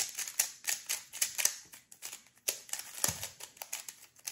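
Rapid, irregular plastic clicking and clacking of a MoYu RS3M 3x3 speed cube being turned by hand, its layers set on very tight factory tensions. A soft low thump comes about three seconds in.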